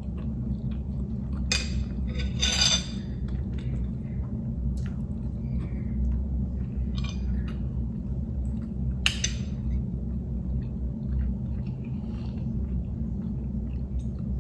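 Metal spoon scraping and clinking against a ceramic bowl during eating, with soft chewing. The longest scrape comes about two seconds in and a sharp clink about nine seconds in, over a steady low hum.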